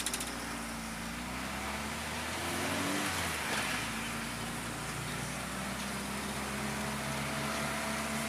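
Volkswagen Voyage's AP four-cylinder engine heard from inside the cabin, pulling away under acceleration. The revs rise for about three seconds and drop at a gear change, then the engine runs steadily.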